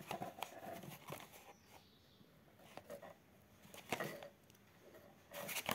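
Faint, scattered rustles and light taps of a cardboard box and crinkled kraft-paper packing being handled, with a busier cluster of rustles near the end.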